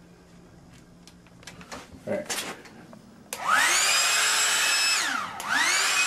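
Hair dryer motor spinning up with a rising whine after a few clicks, running steadily, then winding down about five seconds in and spinning up again: the dryer coming back on after being dunked in water, then cutting out and restarting.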